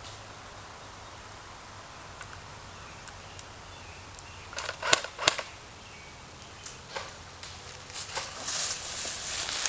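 Mostly quiet steady background, broken about halfway through by a short cluster of sharp snaps, two of them loud. Toward the end come scattered rustling footsteps through brush.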